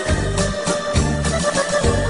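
Keyboard-led background music with a bass line that changes note about twice a second over a steady beat.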